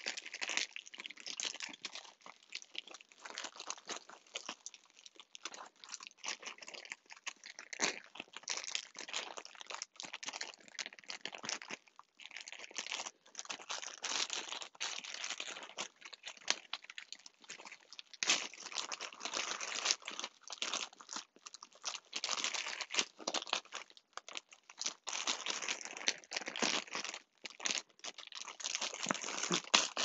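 Packaging being opened by hand: irregular crinkling and crackling of the wrapping, busier in the second half. It is the plush's double layer of sealed packaging being worked open.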